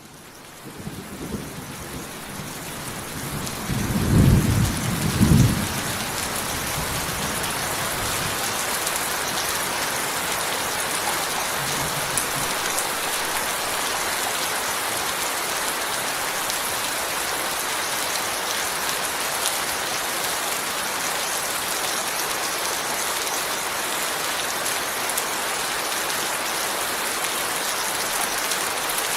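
Heavy rain building up over the first few seconds, with a low rumble of thunder about four to six seconds in, then steady, even rain.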